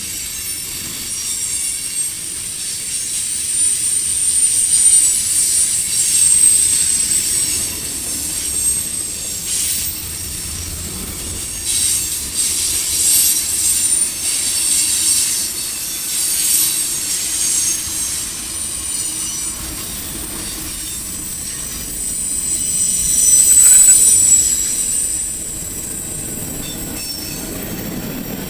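Freight train cars, black tank cars and then flatcars, rolling past with their steel wheels squealing in a high pitch on curved track. The squeal swells loudest a few seconds in and again about two-thirds of the way through, over a steady rumble of the rolling cars.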